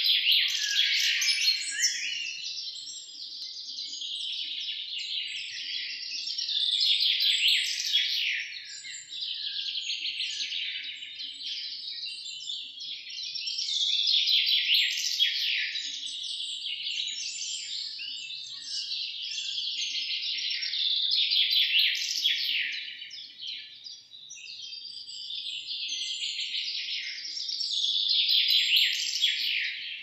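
A chorus of many small songbirds chirping and twittering at once, a dense overlapping mass of high-pitched calls that swells and fades in waves about every seven seconds.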